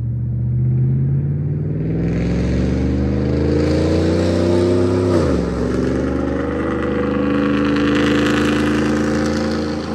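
2011 GMC Sierra's 5.3-litre V8 through long-tube headers, no catalytic converters and a Magnaflow muffler, accelerating hard: the revs climb steadily, drop sharply on an upshift about five seconds in, then climb again in the next gear.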